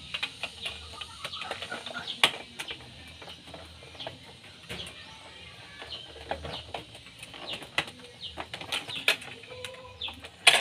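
Plastic parts of an Epson L360 printer's print-head carriage being handled and pressed back into place: irregular small clicks and taps, a sharper snap about two seconds in and another near the end.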